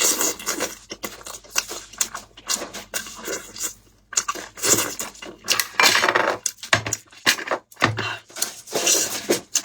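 Dishes and cutlery clattering at a meal, with many short, irregular clicks and rustles.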